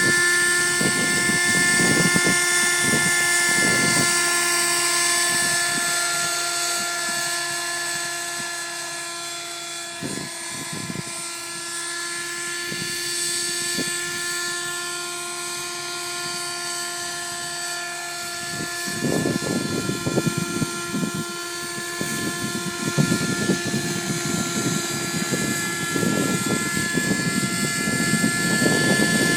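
Raptor 30 nitro radio-controlled helicopter in flight, its glow engine and rotors giving a steady whine that fades somewhat through the middle, then grows again. Wind gusts buffet the microphone at the start and from about two-thirds through.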